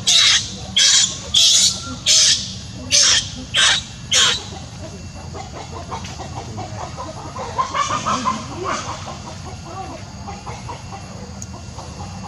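An animal's short, shrill calls repeated about seven times, roughly two-thirds of a second apart, stopping a little after four seconds in; softer chatter follows around eight seconds.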